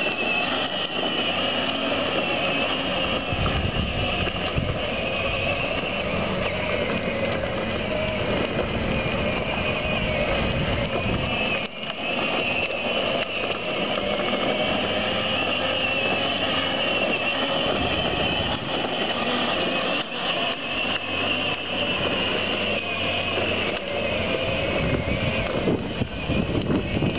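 Joovy 4x4 Jeep battery-powered ride-on toy driving: its electric drive motors and gearboxes give a steady, slightly wavering whine over the rumble of its plastic wheels rolling on asphalt.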